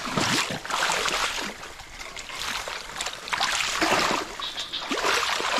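Shallow swamp water splashing and sloshing in a few irregular bursts, as someone wades through it.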